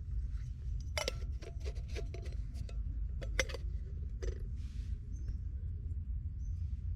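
A quick run of light clinks and clicks, like utensils or cups being handled and set down, bunched in the first four seconds or so, over a steady low rumble.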